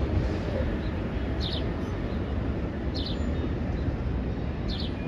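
Low steady rumble of a departing Metro-North M7A electric train pulling away into the distance. A bird chirps three times over it, in short high calls about a second and a half apart.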